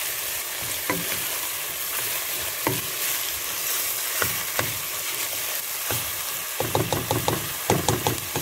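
Ground meat and diced onion sizzling in oil in a stainless steel frying pan, with a spatula scraping and knocking the pan as the meat is broken up. The strokes come in a quick run near the end.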